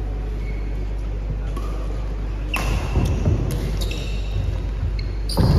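Badminton doubles rally: sharp racket strikes on the shuttlecock and brief shoe squeaks on the court mat, starting about two and a half seconds in. Under them is a steady low hum.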